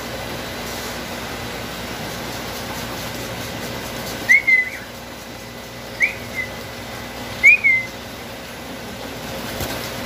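Caged pet bird giving three short whistled chirps, each rising then dropping in pitch, the first about four seconds in and the others about a second and a half apart, over a steady background hum.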